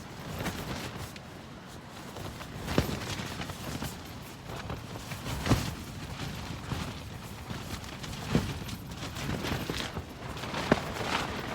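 Strong wind buffeting a tent, its fabric rushing steadily and snapping taut with a sharp crack in the gusts, four times a few seconds apart.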